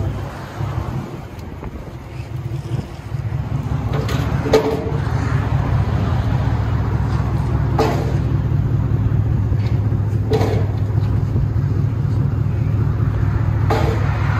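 Ford Mustang GT 4.6L V8 with aftermarket exhaust idling with a steady low rumble, coming up after a quieter first two or three seconds, with four brief sharper sounds over it.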